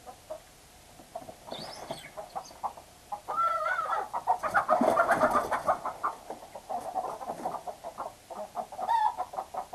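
A flock of chickens clucking, breaking out about three seconds in into loud, panicked squawking and commotion as the birds scatter in alarm, then dropping back to clucking, with one more loud squawk near the end.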